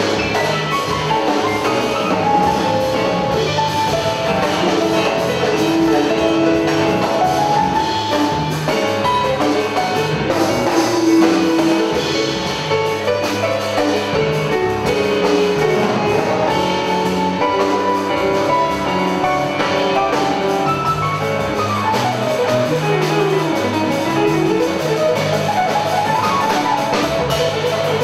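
Live jazz instrumental: a Kawai grand piano solos with fast runs that sweep up and down near the end, over bass and drum kit.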